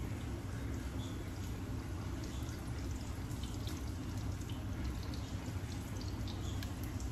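Corn tortillas frying in hot oil in a pan: a steady sizzle with scattered small pops and crackles, over a steady low hum.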